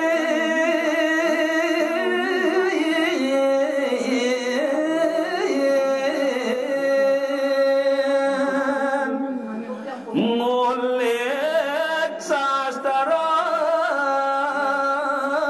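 A solo voice singing a verse of a Balinese geguritan (tembang) without accompaniment, drawing out long notes with wavering, ornamented pitch. There is a brief breath break about ten seconds in, then the singing resumes.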